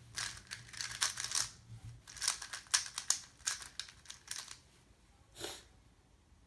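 A plastic 3x3 speedcube being turned quickly in the hands: rapid clicking and clacking of the layers in quick bursts for about four and a half seconds, followed by one short rushing noise about five and a half seconds in.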